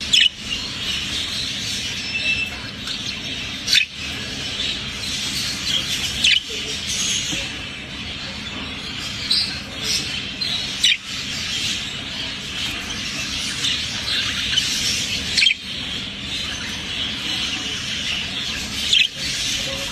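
Budgerigar warbling and chattering steadily, with a louder sharp note every few seconds.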